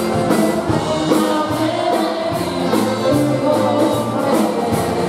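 Live polka band playing dance music, with accordion, saxophone and drum kit over a bass line, and a steady beat of about two strokes a second.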